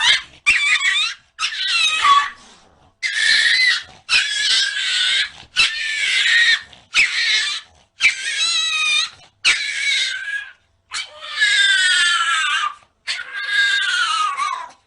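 Cat meowing and yowling loudly in about a dozen drawn-out, high-pitched calls, many wavering or falling in pitch, each cut off abruptly.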